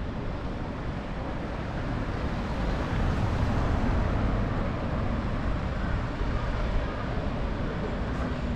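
City street ambience: a steady rumble of road traffic, swelling slightly in the middle as vehicles pass.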